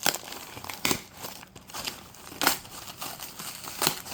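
Cardboard shipping box being torn open by hand: four short, sharp rips, with rustling in between.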